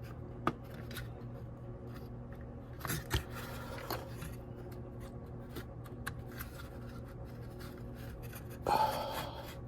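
A few light clicks and a short scrape near the end as a plastic gear in a VW Mk3 heater control is worked under its retaining tab, over a steady low hum.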